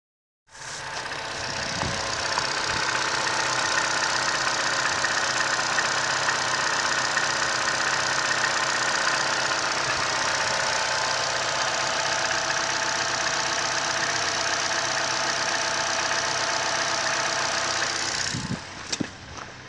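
Holden Cruze's 1.4-litre turbocharged Ecotec four-cylinder petrol engine idling steadily. Near the end its sound drops away and a few clicks and knocks follow.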